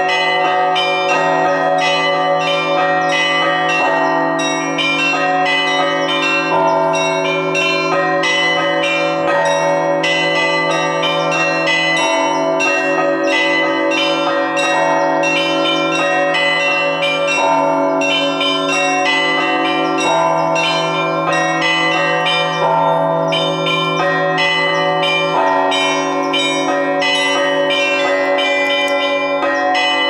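Russian Orthodox belfry bells rung by a bell-ringer pulling clapper ropes: a rapid, steady peal of small bells struck several times a second over the sustained hum of larger bells.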